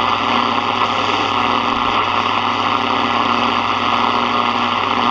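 Sony ICF-7601 shortwave radio's speaker giving out loud, steady static, a hiss with a constant buzzing hum under it, while tuned off-station on a shortwave band with no readable signal.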